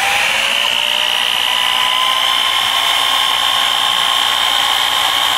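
Handheld electric drill running under load as the pilot drill of an Alfra MBS tungsten carbide hole saw bores into aluminum plate: a steady motor whine that rises slightly in pitch over the first couple of seconds and then holds, over a hiss of cutting.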